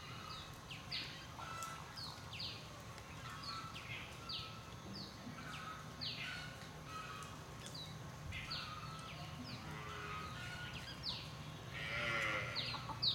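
Short, high calls that each sweep downward, repeated roughly once a second, typical of a bird calling, over a steady low rumble. Near the end there is a brief hiss and a low, falling call.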